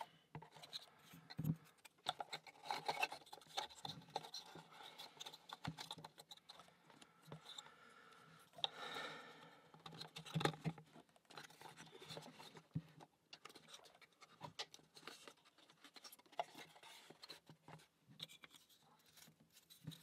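Faint scattered clicks, taps and scratches of thin wooden puzzle pieces being handled, slid and pressed together as side plates are fitted onto a wooden mechanical-puzzle box.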